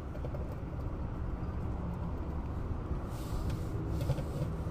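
Steady low mechanical hum, with faint scrapes and clicks about three seconds in as hands work bolts into the transmission oil pan.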